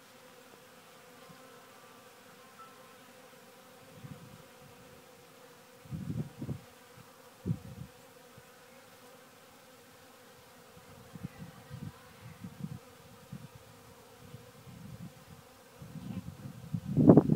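Honey bees buzzing steadily in a continuous hum as they work a sawdust pile. Low gusts of noise hit the microphone now and then, the strongest near the end.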